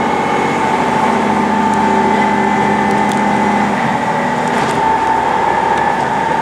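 Train running at speed, a steady rumble with a constant high whine over it.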